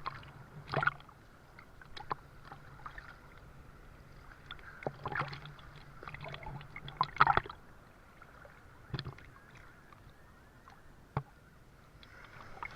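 Water splashing and sloshing in short, irregular bursts, loudest about five and seven seconds in.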